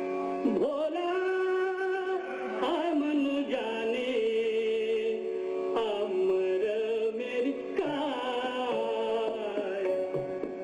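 Indian classical-style music: a melody of long held notes with a wavering vibrato, gliding between pitches, over a steady drone.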